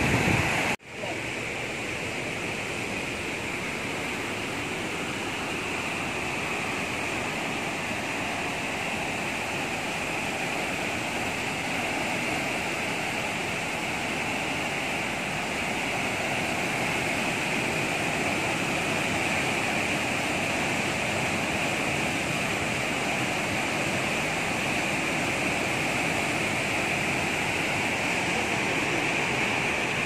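Fast, muddy river water rushing through rapids in a rocky channel: a steady rushing noise, with a brief drop about a second in.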